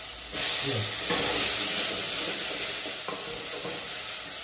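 Githeri (boiled maize and beans) with onions frying in hot oil as chopped tomato is added and stirred: a steady sizzle that swells about half a second in, with a few knocks of the spoon against the pan.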